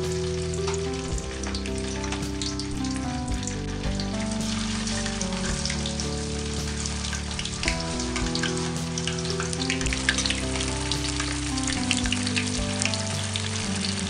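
Tofu slabs frying in hot oil in a steel wok, a steady sizzle with many small spits and crackles that grow livelier in the second half. Soft background music plays underneath.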